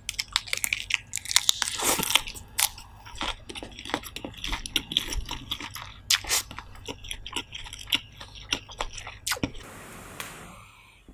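Close-miked eating: wet, crisp biting and chewing of a lettuce-leaf wrap, many sharp crunches one after another. Near the end the chewing stops and a short hiss follows.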